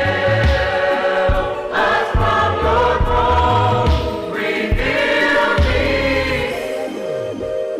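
Gospel choir singing long held notes without clear words over a backing track with a steady low beat.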